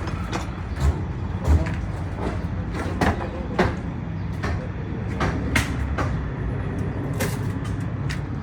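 House demolition work: irregular knocks and clattering impacts over a steady low rumble.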